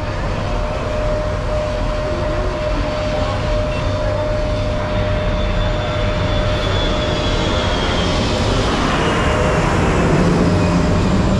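Aircraft engines running: a steady loud roar with a constant mid-pitched hum and a high whine that dips slightly in pitch, growing a little louder near the end.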